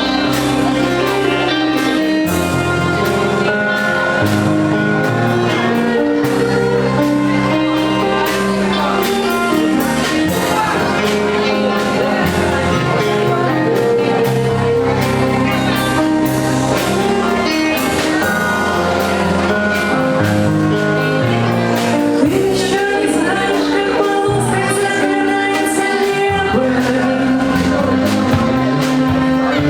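A folk-rock band playing live, with a voice singing over guitar, bass and drums.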